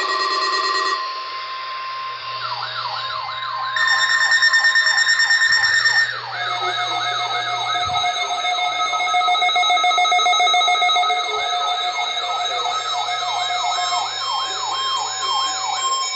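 Several NOAA weather radios sounding their alert alarms at once for an earthquake drill: a steady alert tone near 1 kHz overlaid with siren-like warbling tones sweeping up and down about two to three times a second, which start a few seconds in, with other steady beeping tones starting and stopping under them.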